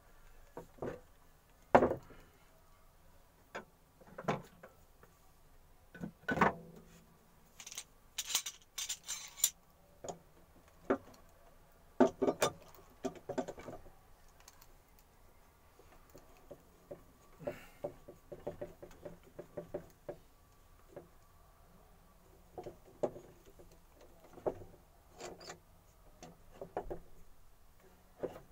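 Irregular knocks, taps and clatter of wooden pieces and hand tools being handled and set down on a workbench, with a brief rasp about eight seconds in.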